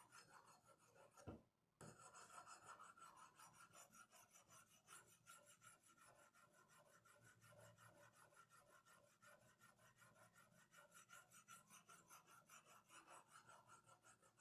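Faint, quick scraping strokes of a 500-grit sharpening stone drawn along a Vanadis 4 Extra steel knife blade in a guided sharpening rig, several strokes a second, evenly repeated: the edge bevel being formed. Just over a second in there is a click and a short break in the strokes.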